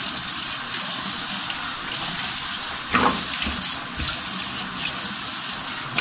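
Bathroom tap running into the sink, with splashes as water is scooped up by hand to rinse a face scrub off the face. The rush of water is steady, with a louder splash about three seconds in.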